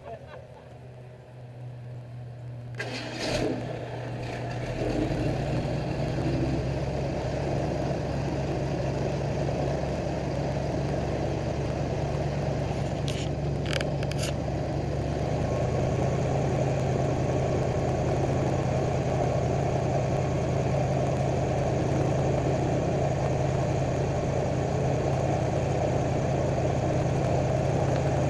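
Airboat engine and propeller, running low and then picking up sharply about three seconds in, settling into a loud, steady run as the boat moves along.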